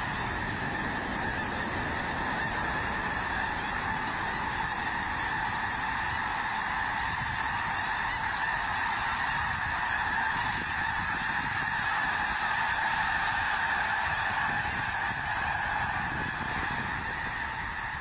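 Dense, unbroken honking of thousands of snow geese as a huge flock takes off together, with a low rush beneath the calls. It swells a little about two-thirds of the way through.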